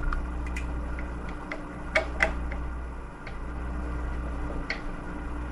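Bolts being tightened into the carbon-fibre landing-gear mounts of an RC helicopter frame: scattered small clicks and ticks of the tool and metal hardware, with two louder clicks about two seconds in.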